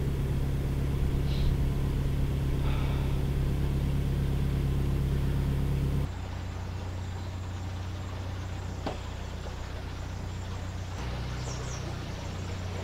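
Narrowboat diesel engine running steadily with a low, even hum. About six seconds in, it gives way to a quieter, lower engine note with the boat under way, which shifts slightly near the end.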